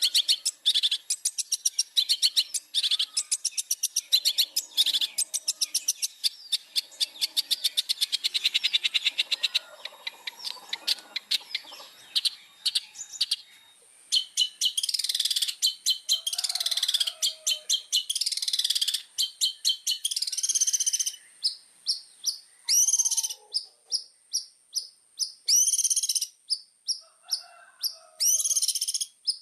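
Long-tailed shrike (cendet) singing a loud, varied song: rapid runs of chattering notes for the first half, then longer harsh, scratchy phrases from about halfway, and spaced sharp notes near the end.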